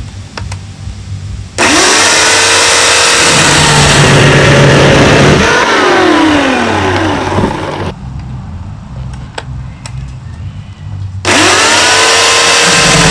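Portland 14-inch corded 9-amp electric chainsaw running and cutting through a branch, in two runs: it starts suddenly about a second and a half in and stops near the middle, then starts again near the end. Its pitch dips and recovers as the chain bites into the wood.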